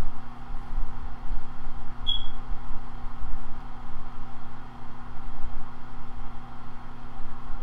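Steady low hum and rumble of running machinery, with a short high squeak about two seconds in.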